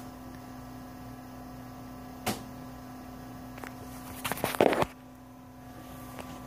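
RCA DLP television's cooling fan running on after power-off, a steady hum. A single click comes about two seconds in, and a short burst of rattling clatter is heard just before five seconds.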